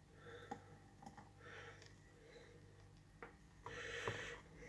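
Very faint handling sounds: a few light clicks, and a soft scrape about four seconds in, from a wooden spoon working against a saucepan as thick lemon posset mixture is poured into a glass measuring jug.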